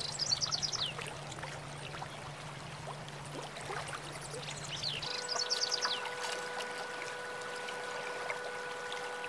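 White Java sparrow chirping: two short bursts of quick, high twittering notes, one at the start and another about five seconds in.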